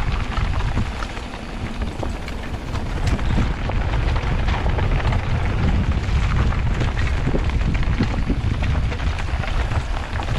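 Mountain bike riding down a dirt trail: heavy wind rumble on the camera microphone over steady tyre noise on dirt and gravel, with scattered clicks and rattles from the bike and stones.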